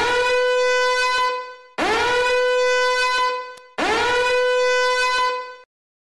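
A horn-like blown tone sounds three times, each blast about a second and a half long and about two seconds apart. Each scoops up in pitch at its start and then holds steady.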